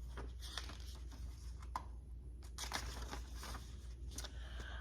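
Paper rustling and a few light clicks as the pages of a picture book are handled and turned.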